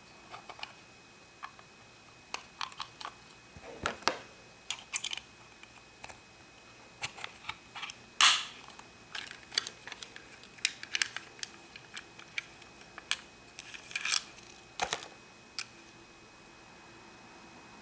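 Small hard-plastic Minnie Mouse Pocket Lock-It playset being handled and opened: irregular clicks and taps of plastic, with a sharper snap about eight seconds in as the latch is worked open.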